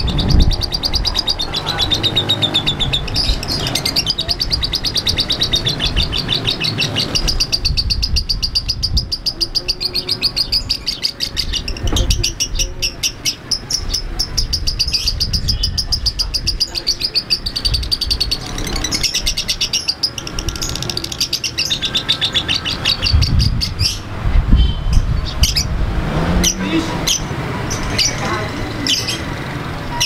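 Yellow-collared lovebird singing a long, very fast chattering trill (its ngekek), rattling on almost without a break, with a thinner patch about a third of the way in: the long unbroken ngekek that marks a 'konslet' lovebird.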